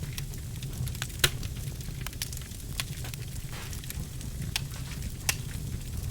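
Birchwood fire in a fireplace crackling: scattered sharp pops, the loudest about a second in, over a steady low rumble.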